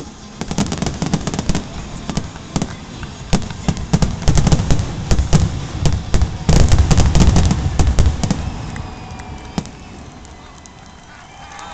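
Fireworks grand finale: a rapid barrage of bangs and crackle with deep booming, densest and loudest about six to eight seconds in, then thinning out to a few scattered pops.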